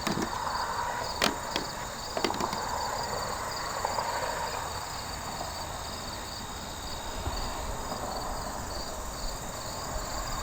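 Insects chirping in a steady, evenly pulsed rhythm, with a constant high drone under it. A few sharp clicks or knocks come between one and two and a half seconds in.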